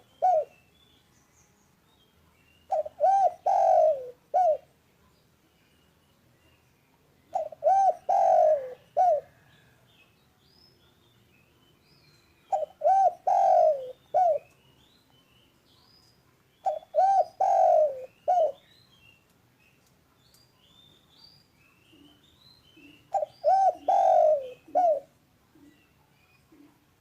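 Spotted dove (derkuku/tekukur) cooing in a loud, repeated phrase of three quick low notes and a separate final note, the phrase coming about every four to five seconds. Faint chirps of small birds sound between the phrases.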